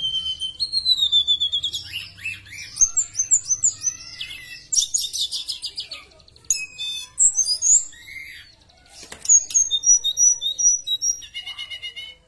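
A tledekan, a blue flycatcher (Cyornis), singing loudly and continuously: a varied run of sliding whistles and rapid trills, briefly softer a little past the middle, then a row of quick repeated notes near the end.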